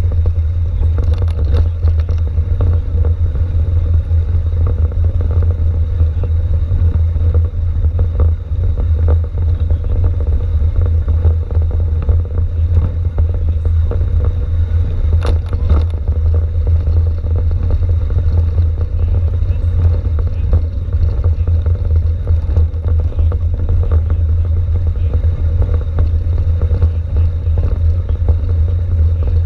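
Mountain bike rolling downhill over cobblestones, heard through a handlebar-mounted camera: a continuous heavy low rumble with rattling from the bike and mount shaking on the stones, and one sharp click about halfway through.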